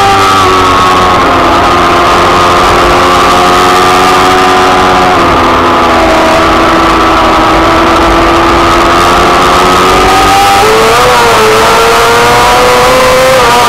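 F2 racing sidecar's engine running hard at high revs, close to the microphone. Its pitch drops about five seconds in and climbs again from about ten and a half seconds, as the outfit slows and accelerates through the corners.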